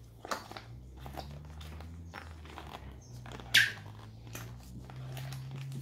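Slime being stirred with a utensil in a plastic bowl as it thickens: irregular sticky squelches and scrapes, with one louder smack about three and a half seconds in.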